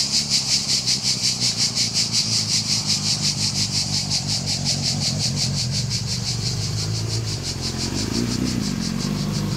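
Motorcycle engine running as the bike rides up and approaches, getting louder near the end. Over it, a loud, high, pulsing insect chorus of several pulses a second, which fades about halfway.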